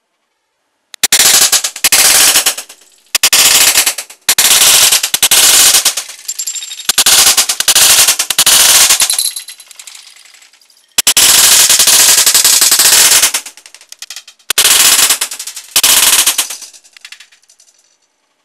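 A Baikal MP-661 Drozd BB gun firing full-auto in about eight rapid bursts, each from half a second to two seconds long and the longest about two seconds, with short pauses between them. The BBs are hitting the targets and debris on the cardboard.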